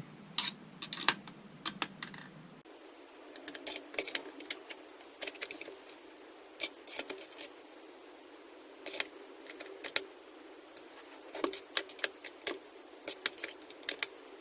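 Light metallic clicks and clinks of a T-handle driver turning and seating the cylinder head bolts on a Husqvarna 181 chainsaw, snugging them down lightly. The clicks come irregularly, in small clusters throughout.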